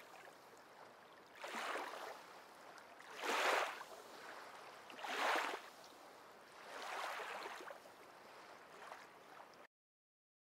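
Small waves washing onto a beach: a swell of surf rises and falls about every two seconds, five times, then the sound cuts off suddenly near the end.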